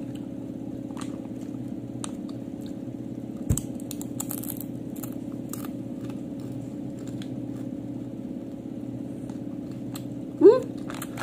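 Doritos tortilla chips being crunched and chewed, a scatter of short crisp crunches over a steady low hum. A single low thump about a third of the way in, and a short rising vocal sound from the eater near the end.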